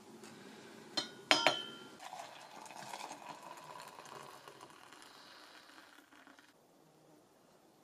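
Sharp metallic clinks, three of them about a second in, the last two close together and ringing briefly. Then a few seconds of softer scraping or rustling that stops about six and a half seconds in.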